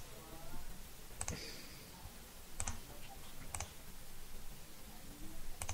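Computer mouse button clicking: four sharp single clicks, spaced a second or two apart.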